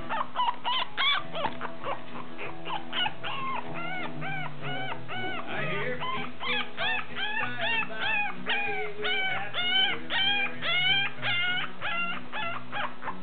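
Toy poodle puppies whimpering and yipping in a rapid, unbroken run of short, high squeals that rise and fall in pitch, with music underneath.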